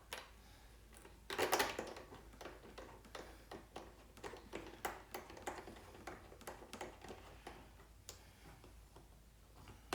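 Faint, irregular clicking and tapping of small metal parts being handled: screws and the stamped aluminum clamp of a GoPro fairing mount being fitted by hand. A louder scrape comes about a second and a half in.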